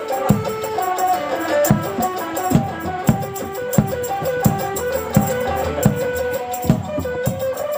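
Dance music: a melody over a steady drum beat, about three beats every two seconds.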